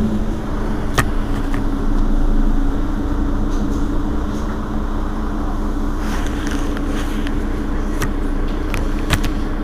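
Mercedes-Benz Citaro city bus engine idling steadily at a stop, a constant low drone, with a few sharp clicks over it.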